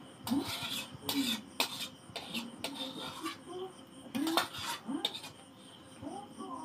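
A metal spatula scraping and clinking against a metal wok (kadai) in a series of short strokes as curry is scraped out into a steel bowl. A faint steady insect trill, like crickets, runs behind.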